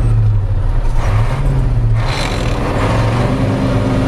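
Truck engine running, heard from inside the cab. There is a short rasping noise about two seconds in, and the engine note rises and then falls near the end.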